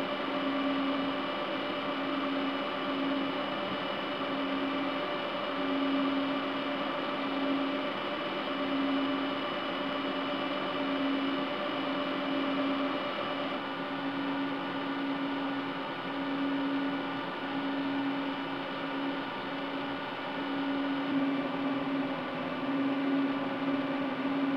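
Cisco Catalyst 5509 switch chassis running during boot, its cooling fans giving a steady whir with a low hum that swells and fades about once a second. Some of the higher whine tones change partway through.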